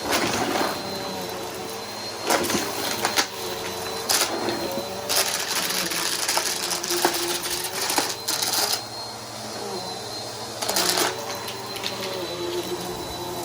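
Bissell PowerForce Helix upright vacuum running steadily. Every second or two it gives a short rattling clatter as debris is sucked up through the brush roll and into the machine.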